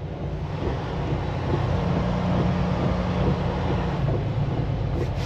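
Semi truck's diesel engine running steadily, with road noise, heard inside the cab.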